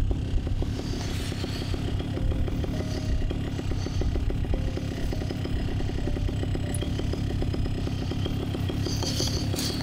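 Paramotor's two-stroke engine idling steadily on the pilot's back while he holds the wing up in a crosswind before launch.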